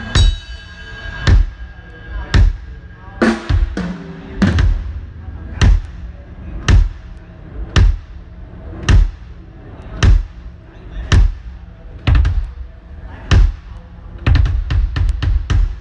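Drums of a drum kit struck one hit at a time at a slow, even pace of about one a second, with a quicker run of hits near the end: a drummer's sound check, each drum played alone for the mix.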